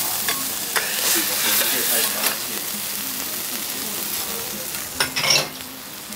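Okonomiyaki sizzling on a hot teppan griddle, a steady hiss. A metal spatula scrapes and clacks against the griddle, loudest about five seconds in.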